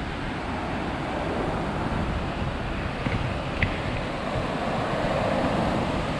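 Ocean surf breaking and washing up a sandy beach, with wind buffeting the microphone as a low rumble. The wash of a wave swells near the end, and there is one brief tick midway.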